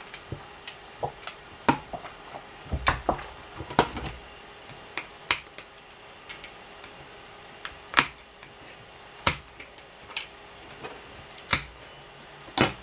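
Thin metal spatula scraping and clicking on a 3D printer's print-bed sheet as small printed plastic parts are pried off, with irregular sharp clicks and taps.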